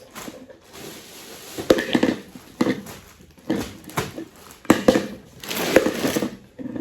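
Rustling and crinkling as things are packed into a bag, with a string of irregular handling bumps.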